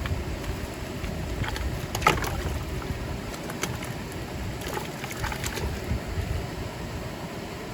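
Water sloshing and splashing over a steady low rumble, with a few short sharp splashes or knocks, the loudest about two seconds in.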